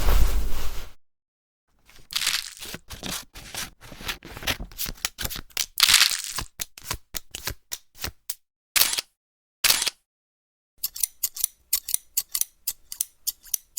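A string of short edited sound effects with dead silence between them: crackly, rustling bursts, then a rapid run of sharp clicks, about seven a second, near the end.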